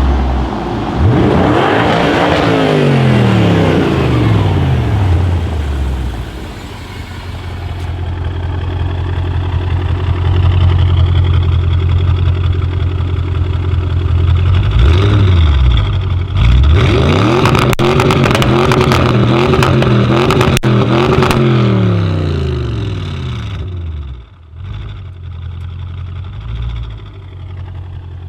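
Audi RS6 C7's twin-turbo 4.0 V8 through a straight-pipe Milltek exhaust, revved hard about a second in and falling slowly back, then running steadily. After that comes a run of quick revs with sharp crackles and pops, before it drops back to a quieter idle near the end.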